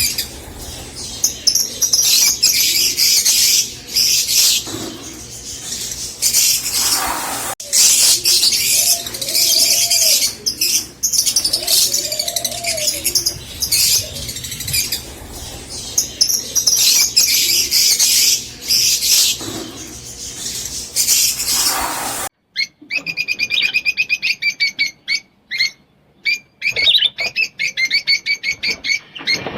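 Fischer's lovebirds chattering and chirping in a dense, shrill, continuous stream of high calls. About two-thirds of the way through it cuts abruptly to a quieter, rapid run of evenly repeated clicking chirps.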